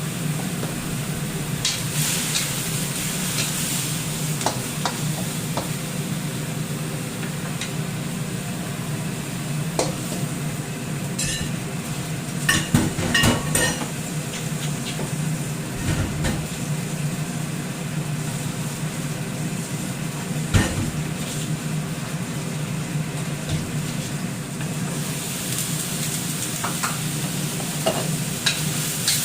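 Food frying and sizzling in a pan while being stirred with a spatula, over a steady low hum, with a cluster of sharp knocks of the utensil against the pan about halfway through and another single knock later.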